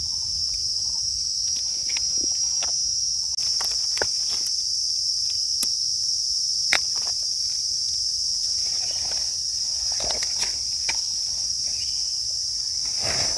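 Insects droning steadily at one high pitch, with scattered light clicks and rustles.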